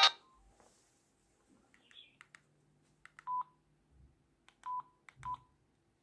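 A phone ringtone cuts off right at the start. Then come a few sharp keypad button clicks, three of them with a short beep, as a number is keyed in on a push-button mobile phone.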